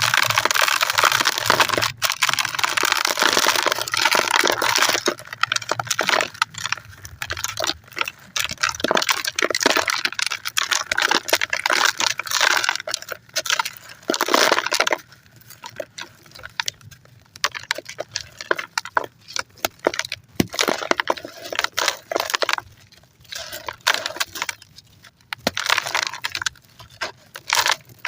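Chalky blocks of concrete and ash crumbling and crushing into small crackling pieces: a dense run of gritty crackles for roughly the first half, then separate crunches with short pauses between them.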